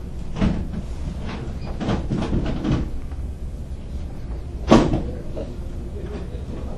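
A few soft knocks and bumps, then one sharp, louder knock a little under five seconds in, over a steady low rumble.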